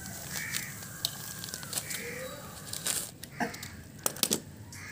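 Crows cawing a few times in the background, with scattered small clicks and rustles from salt and a plastic sachet being handled over a steel pot.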